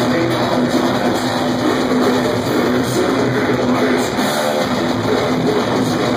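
Heavy metal band playing live: loud distorted electric guitars, bass and drums, with no vocals, heard from within the audience.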